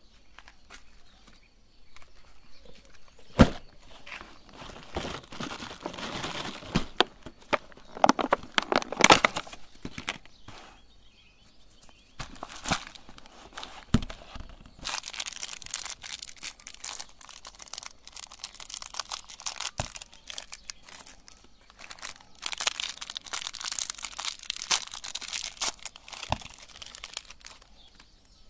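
Plastic candy wrappers crinkling and tearing as jelly candies are unwrapped by hand, in irregular bursts with occasional sharp clicks.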